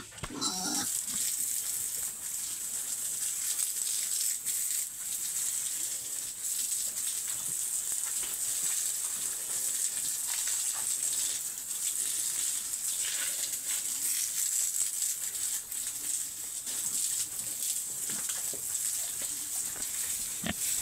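Pigs in a pen grunting and shuffling on wet concrete, over a steady high-pitched hiss.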